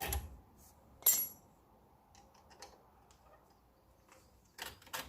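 Metal brake pads and caliper parts clinking and knocking as they are handled: a knock, a louder ringing clink about a second in, a few faint ticks, then two knocks near the end.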